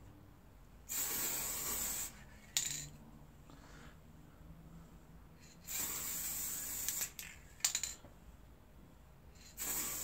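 Aerosol can of spray lacquer hissing in three bursts of about a second each, coating a hazel wood box. A couple of short sharp clicks fall between the bursts.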